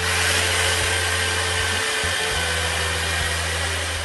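A Sears Craftsman reversible electric drill running at speed, drilling a pilot hole into the wooden base of a miniature wall. Its steady motor hum and whine start abruptly, with a brief dip in the hum about two seconds in.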